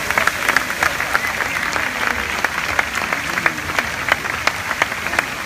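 Crowd applauding: a dense wash of clapping with a few sharp, close hand claps standing out.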